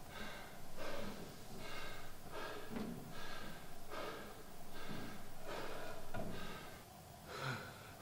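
A man panting and gasping hard in quick, regular breaths, quicker than one a second, from all-out pedalling on a generator exercise bike; the breaths grow quieter near the end.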